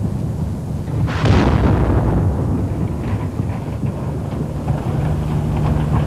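Artillery shelling: a heavy explosion about a second in that rumbles away, over a continuous low rumble.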